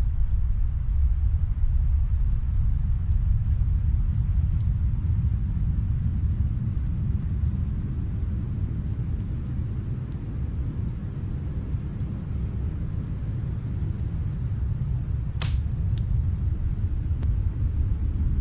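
Steady low rumble of snowstorm wind with a wood fire crackling over it: scattered small pops and one louder crack about fifteen seconds in.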